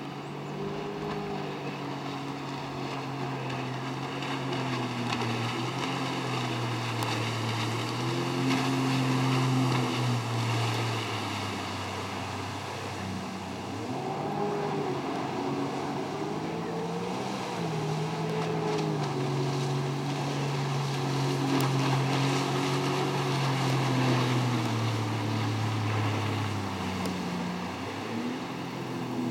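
Personal watercraft (jet ski) engine running at speed, its pitch rising and falling over several seconds at a time as the throttle changes through turns.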